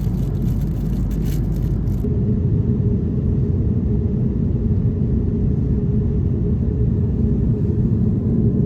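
Steady low rumble; about two seconds in the sound cuts to a duller version with the higher frequencies gone.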